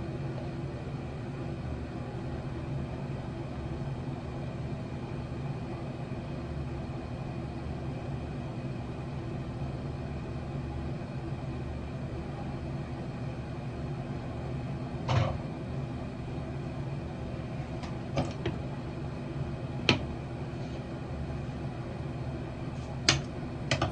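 Steady machine hum throughout, with a few sharp clicks or knocks in the second half: one about two thirds in, two or three more spread across the last stretch.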